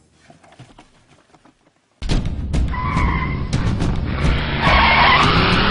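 A car speeding off with its engine running and its tyres squealing, starting suddenly about two seconds in after a near-quiet start.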